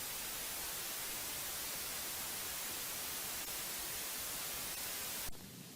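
Steady, even hiss like static, which cuts off suddenly near the end.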